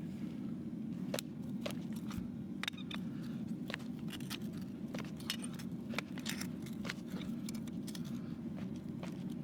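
A farrier's hand tools working on a horse's hoof give irregular sharp metallic clicks and snips, about one or two a second, over a steady low hum.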